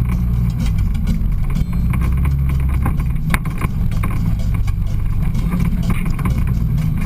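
Side-by-side UTV engine running steadily as it drives a trail, its pitch shifting slightly. There is one sharp knock a little over three seconds in.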